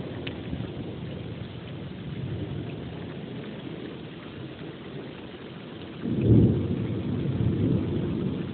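Steady rain falling, then about six seconds in a loud, low rumble of thunder breaks in and keeps rolling.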